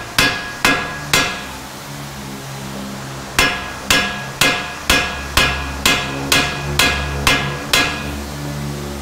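Hand hammer striking a car's steel steering knuckle, metal on metal with a short ring after each blow, about two blows a second: three strikes, a pause of about two seconds, then ten more. The hammering is jarring the tie rod end loose from the knuckle.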